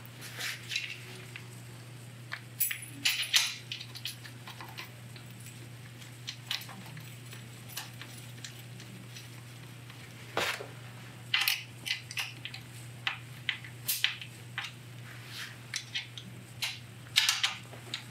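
Small metal fastening hardware clicking and clinking as an M6 button-head screw, spring washer and low-profile flange nut are fitted and tightened to join an Evoflex belt extender to a wheelchair band clamp. Scattered irregular clicks over a steady low hum.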